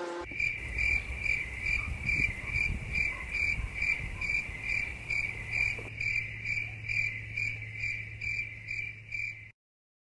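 Cricket chirping in a steady, even rhythm of about two high-pitched chirps a second over a faint low rumble. The chirping cuts off suddenly near the end.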